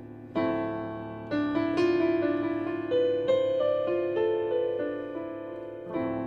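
Slow piano music: a few chords and notes, each struck and left to fade.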